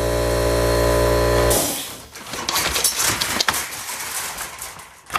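A steady machine hum with many overtones cuts off suddenly about a second and a half in. After it come a run of light clicks and knocks of small wooden blocks being handled and fitted into a wooden jig.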